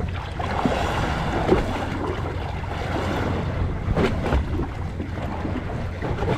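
Wind buffeting the microphone on a boat at sea, over a steady low rumble and the wash of water, with a couple of short sharper knocks or splashes about a second and a half in and about four seconds in.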